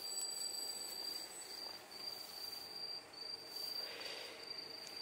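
Crickets trilling: one steady, high-pitched tone broken by short gaps.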